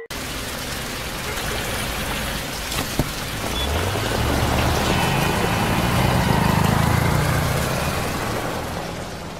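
Rain and street traffic: a steady hiss of rain with a motor vehicle's engine running underneath, swelling a few seconds in and fading away near the end.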